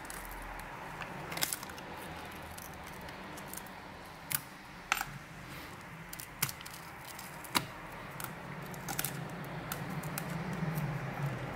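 Cracked glass touch panel of a tablet being pried away from its frame with pry tools: scattered sharp clicks and crackles of the glass cracking and the tools catching, with several louder snaps along the way, over a faint low hum.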